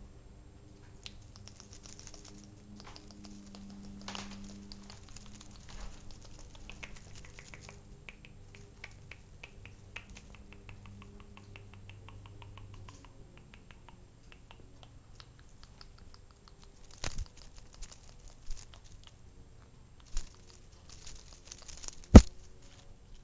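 Close-up rustling and small scratchy clicks as a Persian kitten moves about on a fabric cushion right against the microphone, with a few sharp knocks in the last several seconds, the loudest near the end.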